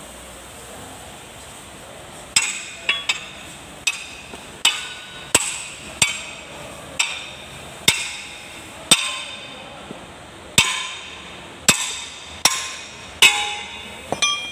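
Sharp metallic clanks, about a dozen and a half at irregular intervals of roughly a second, starting a couple of seconds in: a large steel wrench knocking on the nut and gear of a tractor's rear-axle final drive as it is worked to loosen the nut.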